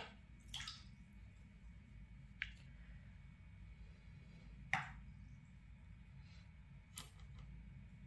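Watercolour brush working in a paint box, picking up paint from the pans: five light taps and wet dabbing sounds, the loudest a little past halfway.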